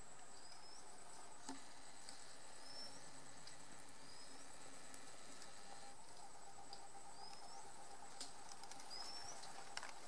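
Forest ambience: a steady, high-pitched insect drone with a bird repeating a short rising whistle about five times, one to three seconds apart, and a few faint clicks.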